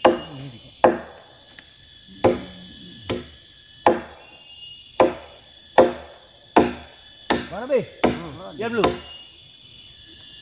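A blade chopping into a wooden hut post, a steady run of sharp strokes a little under one a second, over a steady high insect drone.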